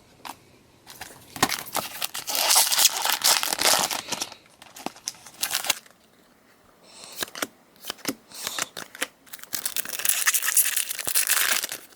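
Foil wrapper of a Pokémon trading card booster pack being torn open and crinkled. There are two stretches of rustling and tearing with a short pause about halfway.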